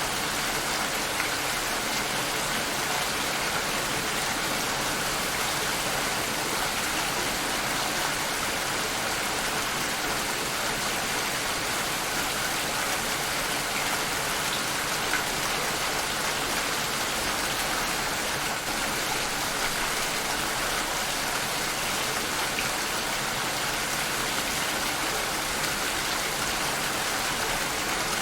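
Steady rain falling, an even hiss with a few faint drop ticks here and there.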